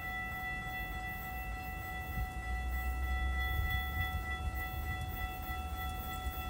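A steady high-pitched tone holding one pitch without change, over a low rumble.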